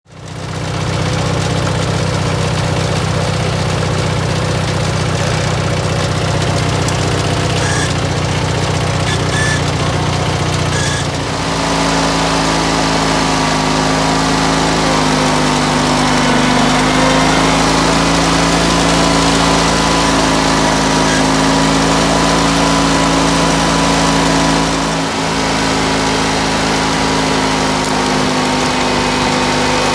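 Wheel Horse 417-A garden tractor's engine running steadily. About eleven seconds in the sound changes to a steadier hum with a whine above it that wavers slightly in pitch.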